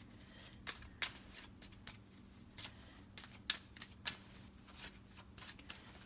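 Tarot cards being shuffled by hand: a run of irregular soft snaps and clicks, the sharpest about a second in.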